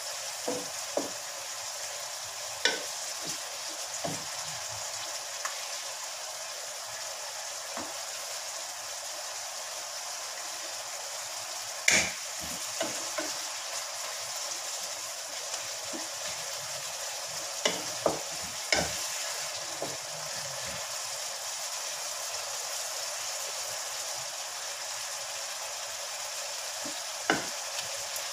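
Chicken and vegetables sizzling in a wok over a low flame, with a spoon stirring through them and knocking against the wok now and then in sharp clicks, the loudest about twelve seconds in and a quick cluster of three around eighteen seconds.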